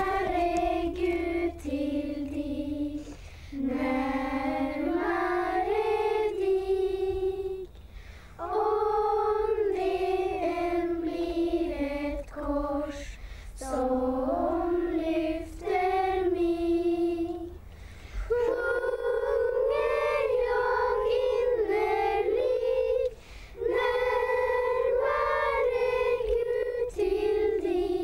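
Children's voices singing a hymn together in slow phrases, with short breaks between the lines.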